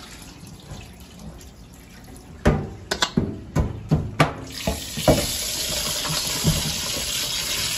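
A stainless steel bowl knocks sharply against a steel sink about eight times in quick succession. Then a tap starts pouring steadily into the bowl as pieces of iguana meat are rinsed by hand.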